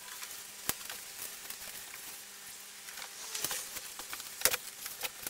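Scattered light clicks and taps, with a brief rustle about three seconds in, as a thin sheet window panel is handled and fitted into a bare car door's window frame.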